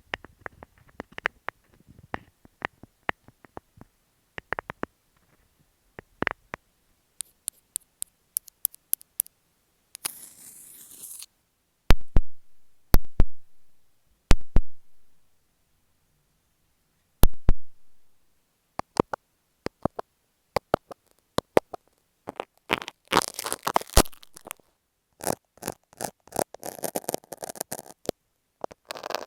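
A medley of close-up ASMR triggers on an earphone microphone: sharp taps and clicks, a brief scratchy rustle about ten seconds in, a few dull low thumps between about twelve and eighteen seconds, then quicker clicks and scratchy rubbing toward the end.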